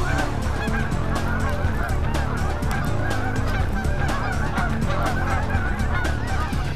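A flock of Canada geese honking as they fly in, many short calls overlapping without a break.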